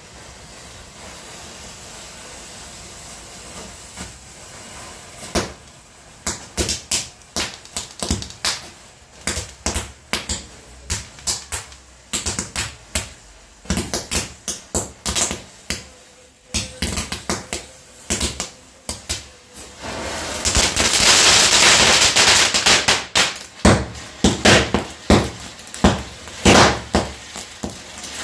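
Small Diwali firecrackers going off one after another in a long irregular string of sharp pops, after a few seconds of steady hiss. About twenty seconds in comes a dense crackling burst lasting about three seconds, then more single pops.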